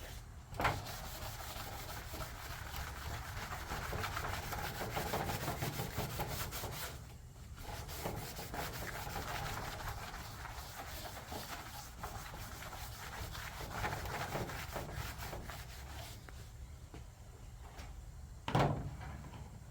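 Scrubbing an aluminum race-car body panel, a steady run of scratchy rubbing strokes that take tire burn marks off it, with a short pause about seven seconds in. A sharp knock just after the start and another near the end.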